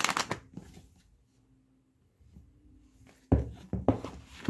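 Paperback book pages riffling briefly at the start. About three seconds later come a few dull thumps and rustles as the closed book is set down and handled on a table.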